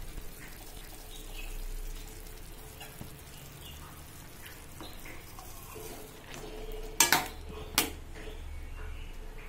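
Steel slotted spoon stirring boiled raw banana pieces in a stainless steel pot, scraping and knocking against the pan, with two sharp metal clinks near the end.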